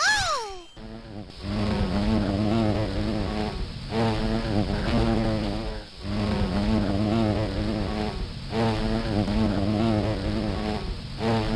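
Cartoon bee buzzing sound effect: a droning buzz with a wavering pitch, repeating in stretches of two to three seconds with short breaks between. Right at the start there is a brief whistling tone that rises and then falls.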